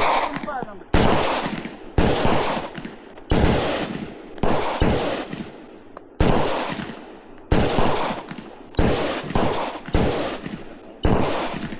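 Firearm shots fired one at a time: about a dozen single gunshots, roughly one a second at an uneven pace, each with an echoing tail.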